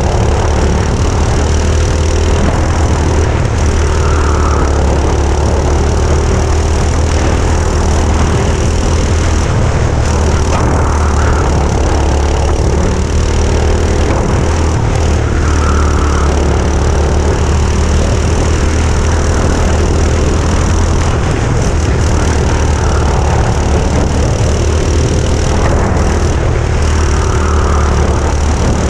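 Go-kart engines running during a race, a loud steady drone with a strong low hum.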